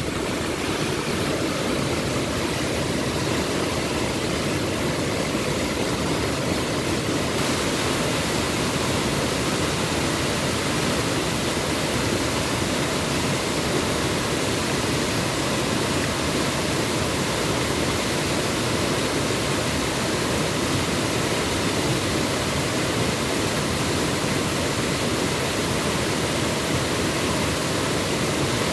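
A waterfall in flood: muddy brown floodwater pouring over a rock ledge and churning through a gorge, a loud, steady rushing noise that turns a little hissier about seven seconds in.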